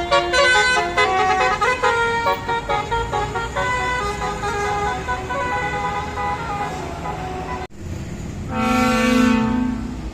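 Bus 'telolet basuri' multi-note horn playing a quick run of changing notes like a tune. After a sudden break, one held horn note swells up and lasts about a second and a half, louder than the tune.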